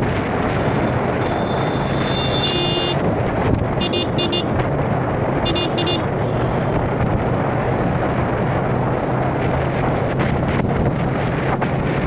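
Motorcycle riding along a road, a steady engine hum under heavy wind noise on the microphone. A vehicle horn sounds, one longer toot from about one to three seconds in, then short beeps around four seconds and again around six seconds.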